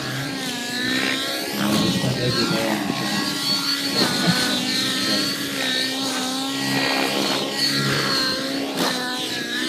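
A 700-size nitro RC helicopter with a YS 120 engine flying aerobatics: the engine and rotor blades run loudly, their pitch rising and falling with the manoeuvres.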